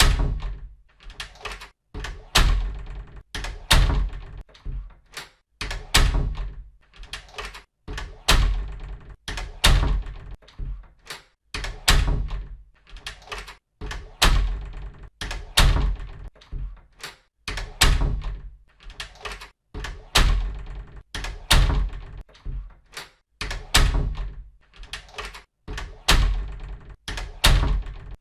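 A door being shut again and again, each close a sharp thud with a latch click and a short decay, coming about every one to two seconds.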